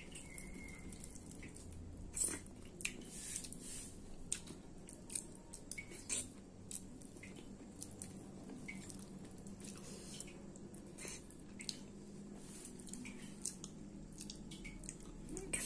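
A person eating khichdi and goat curry with her fingers: faint, wet chewing and mouth smacks, with scattered short clicks at irregular intervals.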